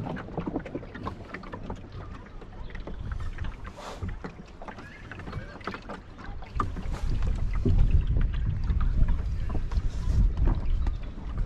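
Small sailing dinghy under way: water splashing and slapping against the hull, with wind buffeting the microphone. The low wind rumble grows heavier about six and a half seconds in.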